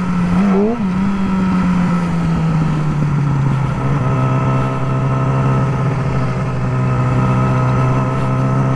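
Yamaha R6's inline-four through a Graves slip-on exhaust: a short blip of revs just under a second in, then a steady engine note that eases a little lower and holds level while riding.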